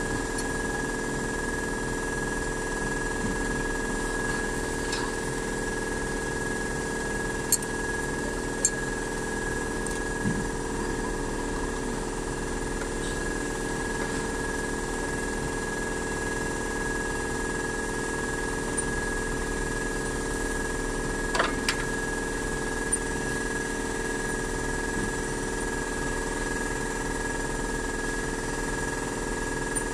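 Steady mechanical hum with several fixed pitches, and a few sharp metallic clicks and taps from hand work on a diesel injection pump as it is fitted to the engine.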